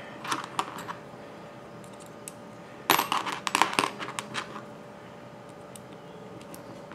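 Metal clinks and clatter of small hex wrenches and an aluminium model engine being handled on a work mat: a few light clicks in the first second, a denser run of clinking about three seconds in, then a couple of faint ticks.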